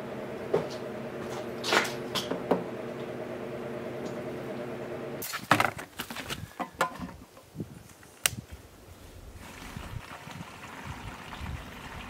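A steady machine hum with a few sharp clicks of containers and tools being handled on a workbench. About five seconds in the hum stops, followed by a run of hollow knocks and clatter from plastic gas cans being handled, then a few scattered knocks.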